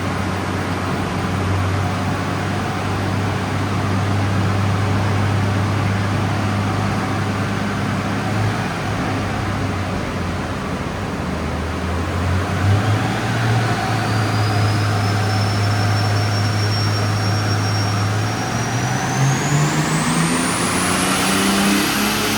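Turbocharged Mercedes 190E's six-cylinder engine running at a steady speed, then accelerating near the end, its pitch climbing, with a high whine that rises in pitch from about halfway through.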